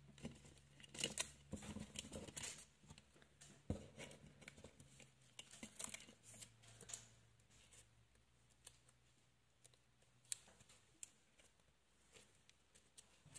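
Faint scattered clicks, taps and rustles of cardboard packaging and cards being handled and moved about on a desk. They are busiest in the first few seconds and thin out after about eight seconds.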